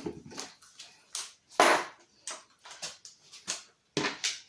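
Handling noise from cordless tools: a string of irregular knocks and clicks as one impact driver is put down and another picked up.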